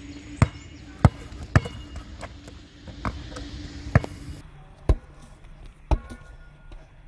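A basketball bouncing on a court floor, about six sharp bounces at uneven spacing, some with a short ringing tone after the bounce.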